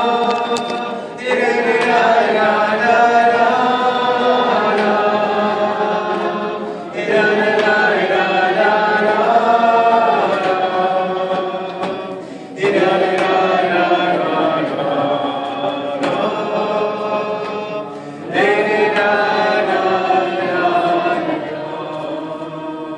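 A roomful of people singing a wordless niggun together, in long phrases that each start with a sudden swell about every five to six seconds and ease off. The singing trails away near the end.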